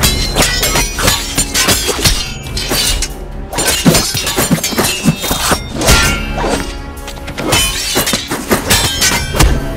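Added fight sound effects, sword swings and a rapid run of sharp hits and thuds, some ringing after the strike, layered over loud action music.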